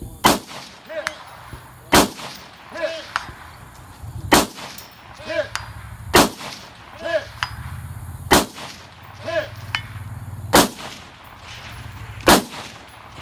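Seven rifle shots, about two seconds apart, each followed a moment later by the faint ring of the bullet striking a distant steel target.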